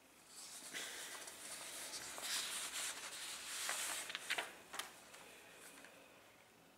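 Sheets of paper rustling as they are handled, with a few sharp clicks and crackles about four to five seconds in. It then dies away to quiet room tone.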